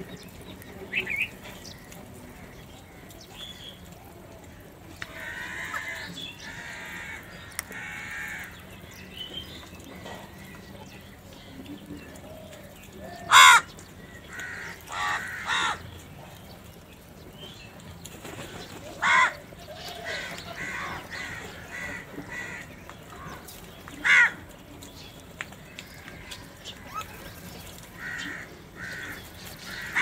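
House crows cawing: several loud single caws a few seconds apart, with softer calling in between.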